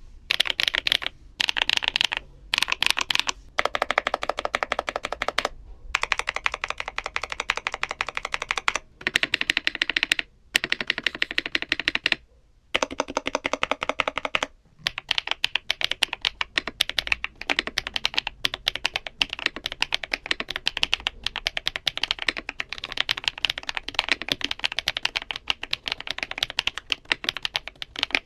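Fast typing on a Furycube E68 mechanical keyboard in stock form: unlubed HMX linear switches on a flex-cut polycarbonate plate with thick PBT double-shot keycaps. A dense run of rapid keystroke clicks, broken by several brief pauses.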